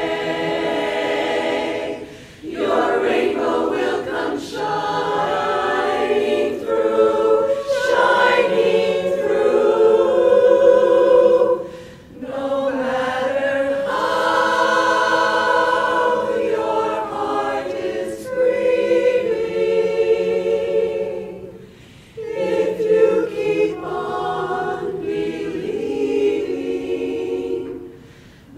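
Women's barbershop chorus singing a cappella in close harmony, with sustained chords. The singing breaks off briefly between phrases about two, twelve and twenty-two seconds in.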